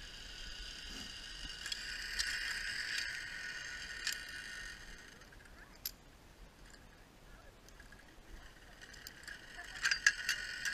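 Zipline trolley pulleys running along a steel cable, a steady whine that fades out about five seconds in and returns near the end. Sharp metallic clicks of trolley and carabiner hardware near the end.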